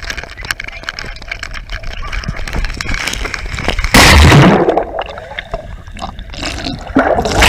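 Feet running and splashing through shallow lake water, then a loud splash about four seconds in as the camera plunges under the surface. After that the water sounds muffled and gurgling, heard from underwater, with another loud splash near the end.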